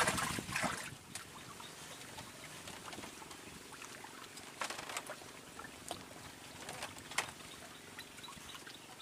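Water lapping and trickling at the edge of a fishing spot on a reservoir, with a louder rush of noise in the first second and a few short sharp clicks and taps through the rest.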